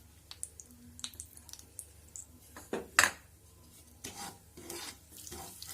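Metal spoon clinking and scraping in a frying pan, with a sharp knock about three seconds in, then stirring with a light sizzle as ground spice powder goes into hot oil near the end.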